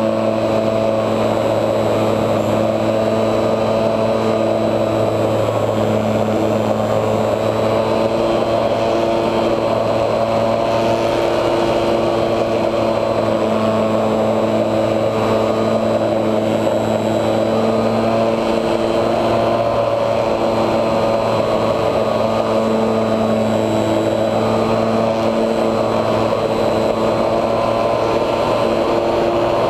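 Electric motor and propeller of a HobbyZone Super Cub RC plane, heard from a camera on the plane, running steadily in flight: a buzzing hum at a near-constant pitch.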